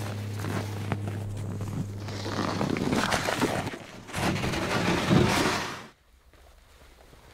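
Plastic utility sled dragged over packed snow with boots crunching alongside, then scraping and rustling as the load of snow is tipped out onto a quinzee pile; a steady low hum sits under the first couple of seconds. The sound falls off sharply about six seconds in.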